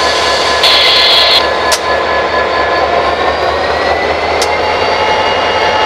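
EMD SD40-2 diesel locomotive's turbocharged 16-cylinder engine running as the locomotive is eased forward to climb its derailed wheels back onto the rail. Steady high whining tones rise slightly in pitch from about three seconds in, with a brief high hiss about a second in and a couple of sharp clicks.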